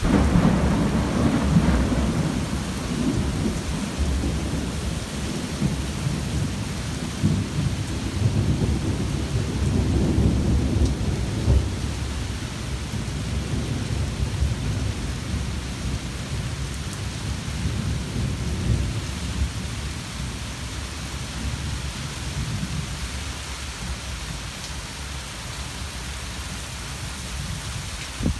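A long rolling peal of thunder over a steady downpour of rain. The rumble breaks in suddenly, swells again about ten seconds in, then slowly dies away, leaving only the rain hiss in the last few seconds.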